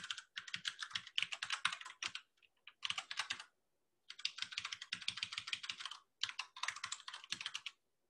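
Fast typing on a computer keyboard in four bursts of rapid keystrokes, with short pauses between them.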